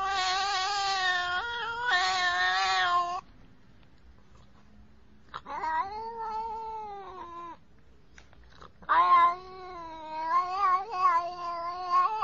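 Domestic cat meowing in long, drawn-out yowls with a wavering pitch: one call ends about three seconds in, another comes around the middle, and a longer, wavering one starts at about nine seconds.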